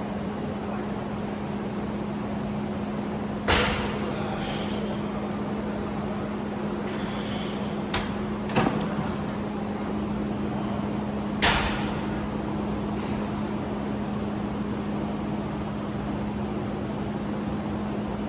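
Gym background with a steady low hum, broken by about five sharp clanks of gym equipment, the loudest about three and a half and eleven and a half seconds in.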